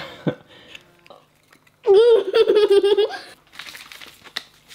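A young girl laughs, a high, shaking laugh lasting about a second, beginning about two seconds in. Near the end come faint crinkles and ticks as a packet of candy powder is handled and tipped out.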